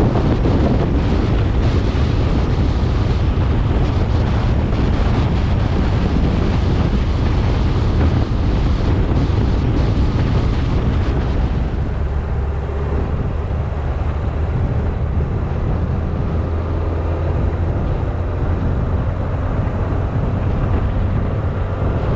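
Car driving along a road: a steady low rumble of engine and tyres with wind buffeting the camera's microphone. The hiss eases a little about halfway through.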